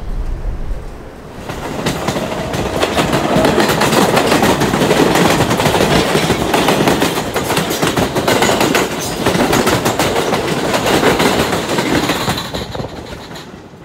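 Wind buffeting the microphone for the first second or so, then New York City Subway trains running on elevated track, with an R160 train passing close alongside: a steady rumble with rapid wheel clatter over the rail joints, fading out near the end.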